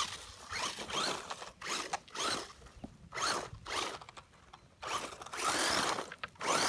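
WLtoys A959-B electric RC buggy's motor whining in repeated short throttle bursts, the pitch rising and falling with each one, with one longer full-throttle run about five seconds in.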